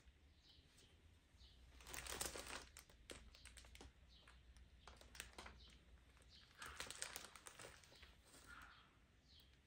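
Faint rustling and crinkling as a knitted yarn shawl is handled over plastic-wrapped packages, louder about two seconds in and again about seven seconds in.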